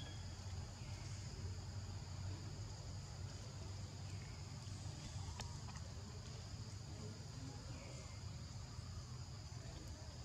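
Steady high-pitched insect chorus, a continuous drone of two unbroken tones, over a low rumble, with a few faint clicks.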